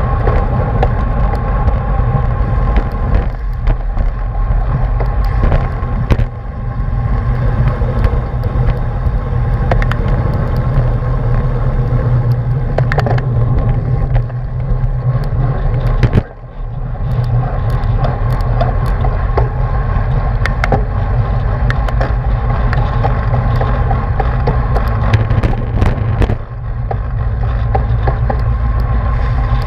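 Wind rushing over an action camera's microphone on a road bike riding fast in a racing pack: a loud, steady low rumble with scattered sharp clicks and knocks. The rumble drops briefly a few times.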